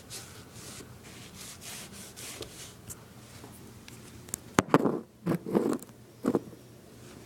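Cloth rubbing leather conditioner into a leather sneaker upper in repeated short strokes, followed about four and a half seconds in by a few louder thumps and knocks from the shoe being handled.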